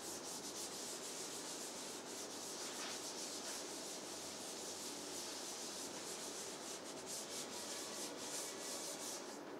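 Whiteboard duster rubbing across a whiteboard, erasing marker writing: a continuous dry scrubbing made of quick back-and-forth strokes.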